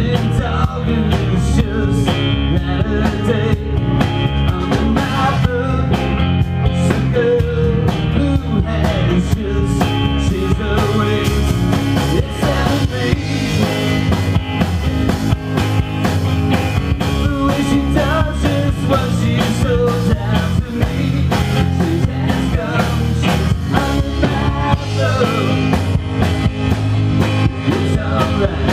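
Live rock band playing loud: electric guitar over bass and a drum kit.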